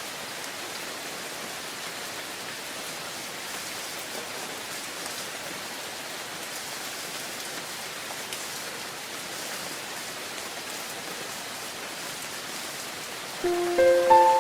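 Steady rain falling, an even hiss with no break. Near the end, a few ringing chime-like notes at different pitches come in over the rain, louder than it.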